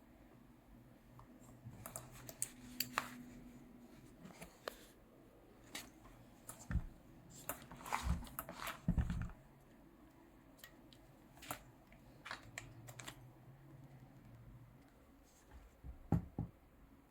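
Scattered clicks and taps with a few dull knocks, as of small hard objects being handled and set down; no motor running.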